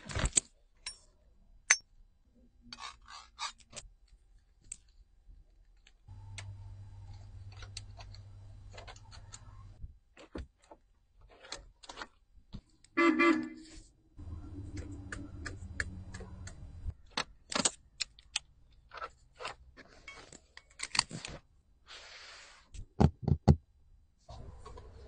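A string of clicks and knocks from the controls and trim of a classic Mercedes-Benz being handled, with two stretches of steady low hum. About 13 seconds in comes one short, loud car-horn beep.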